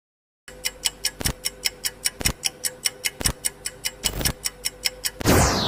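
Countdown-timer clock ticking sound effect: rapid even ticks, about four a second, with a heavier beat once a second. About five seconds in, a loud sound falling in pitch takes over.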